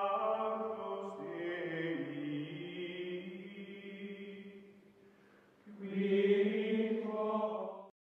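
Outro music of chanting choir voices holding long chords. The chord shifts lower a couple of seconds in, fades out past the middle, and then a fresh chord swells and cuts off suddenly near the end.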